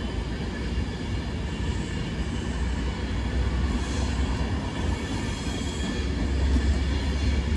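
Avanti West Coast Class 390 Pendolino electric train running past. Its wheels on the rails make a steady, continuous rumble.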